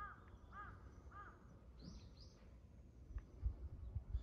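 Birds calling: three short arched calls about half a second apart, then a couple of higher chirps about two seconds in, with a few low thumps near the end.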